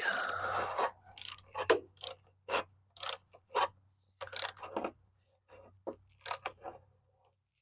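Irregular strokes of clicks and clatter from a socket ratchet tightening a new oil filter onto a lawnmower engine.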